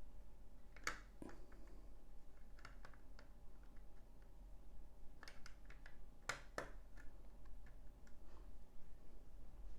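Small plastic LEGO bricks clicking and clattering as they are handled and pressed into place, in scattered light clicks with louder clusters about a second in and again around five to six and a half seconds in.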